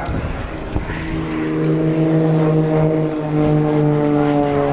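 Extra 300 aerobatic plane's six-cylinder Lycoming piston engine and propeller running at high power in flight, a steady buzzing drone. It grows louder about a second and a half in and drops slightly in pitch about three seconds in.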